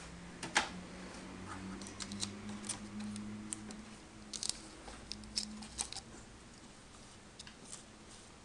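Small scattered clicks and crackles of hands working inside an open VHS player's tape mechanism, over a low steady hum that fades out about six seconds in.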